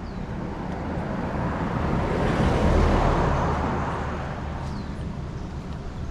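A motor vehicle passing by, its engine and tyre noise swelling to a peak about three seconds in and then fading away.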